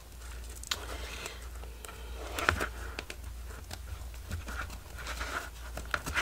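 Irregular small clicks and light rustling of handling as metal eyelets and their backings are pushed into the punched holes of a soft journal cover's spine, over a steady low hum.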